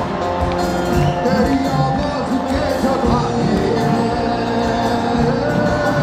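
Live band music played loud through a PA: a drum kit keeping a steady beat under electric bass and held notes.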